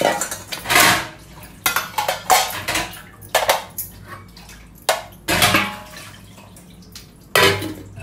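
Steel utensils clattering and water splashing as dishes are rinsed by hand in plain water, in a run of irregular sharp clanks and splashes.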